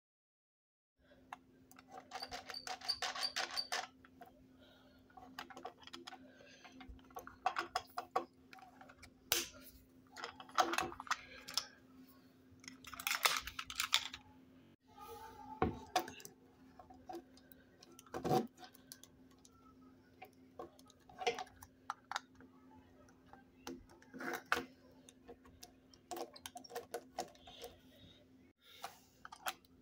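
Small hard-plastic toys being handled on a wooden table: scattered clicks, rattles and knocks as pieces are moved, opened and set down, starting about a second in, over a faint steady low hum.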